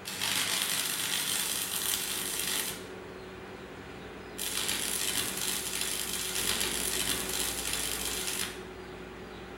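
Stick welding: the electric arc crackles and sizzles in two runs, one of about two and a half seconds and a longer one of about four seconds, with a steady low hum in the pauses between.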